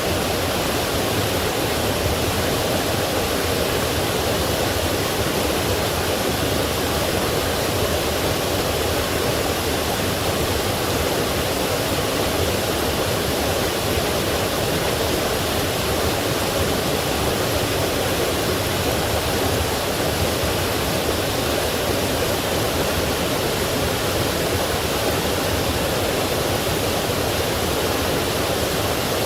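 Forest stream flowing over a waterfall: a steady, even rush of water with no breaks or changes.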